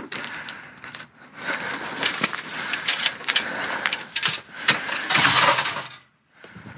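Rustling and clattering of discarded items being handled and moved, with many sharp knocks.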